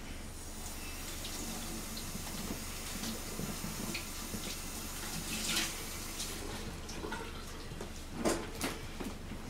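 Water running from a tap, an even hiss that stops about six seconds in, with scattered light clicks and taps around it.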